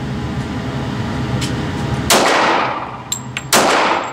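Two pistol shots from a Glock, about a second and a half apart, each followed by a long echoing decay in the indoor range.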